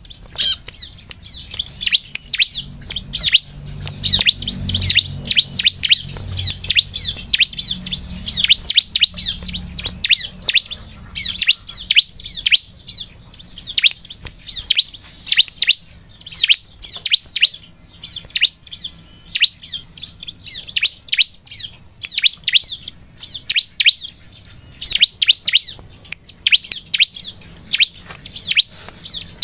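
Bar-winged prinia (ciblek) calling repeatedly: quick runs of sharp, high chirps coming in bursts, one after another.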